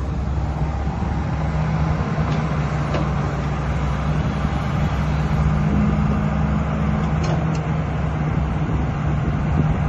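JCB 225LCM NXT tracked excavator's diesel engine running steadily, with a few faint clicks.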